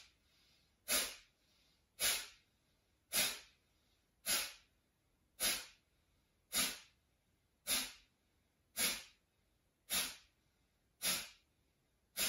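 Forceful exhalations through the nose in Kapalabhati breathing, the belly pushing the air out in one go each time: a short, sharp puff about once a second, eleven in a row, evenly spaced.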